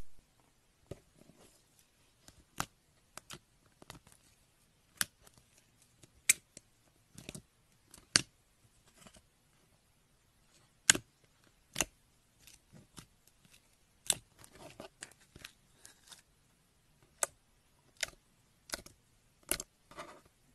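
Clear slime being poked, pressed and stretched by fingers, giving sharp, irregular clicks and pops, about one a second, with a quicker run of small crackles a little after the middle.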